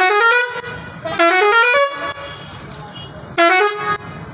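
Six-trumpet musical truck horn set driven by a digital melody maker, being tested: it plays a tune of quick stepped notes that ends about half a second in, then another short phrase about a second in and a brief blast near the end.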